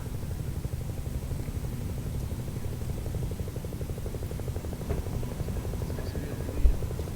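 Low, steady rumble of the Shuttle Carrier Aircraft's jet engines on approach, the Boeing 747 carrying Space Shuttle Endeavour, with a brief low thump near the end.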